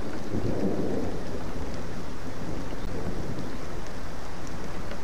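Heavy rain falling steadily, with thunder rumbling low underneath, the rumble strongest in the first second.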